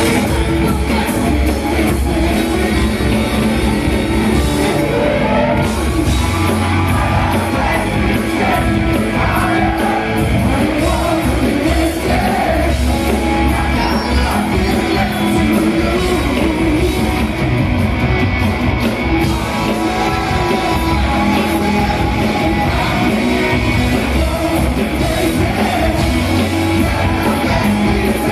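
Live rock band playing loudly in a hall, with electric guitar, bass guitar and drum kit under a male lead vocal.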